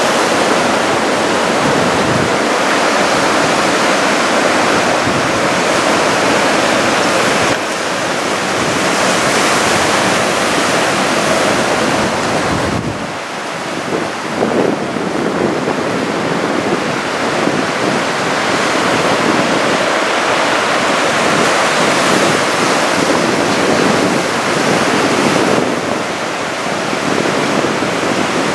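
Heavy ocean surf from a typhoon swell, a continuous loud rush of breaking waves mixed with wind buffeting the microphone. The sound shifts abruptly a couple of times.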